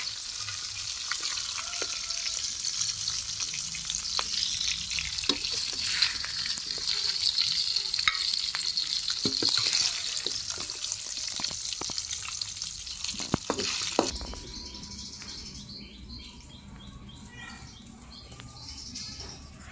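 Food sizzling as it fries in a pan, a dense steady hiss with scattered sharp clicks. About fourteen seconds in it cuts off suddenly to a much quieter background.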